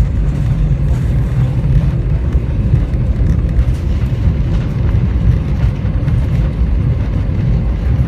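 Airbus A320 passenger-cabin noise: a steady, loud low rumble as the airliner rolls on the ground just after landing.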